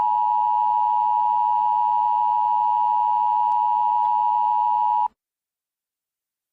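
Emergency Alert System attention signal: a loud, steady alarm tone held unbroken, cutting off suddenly about five seconds in.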